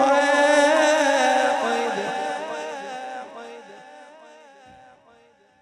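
A man's melodic Quran recitation (tilawat): a long drawn-out note with a wavering, ornamented pitch, sung through a sound system. It trails off in echo and fades away over the last few seconds.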